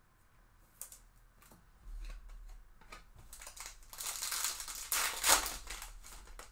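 Foil wrapper of a Topps Chrome Sapphire trading-card pack being torn open and crinkled by hand. A few light clicks of handling come first, and the crinkling is loudest about five seconds in.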